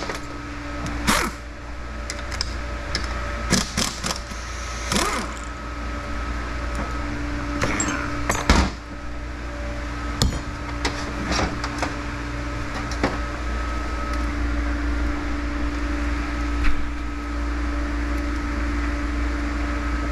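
Hand tools and metal transmission parts knocking and clinking at irregular intervals during a TH350 transmission teardown, the loudest knock about eight and a half seconds in, over a steady hum.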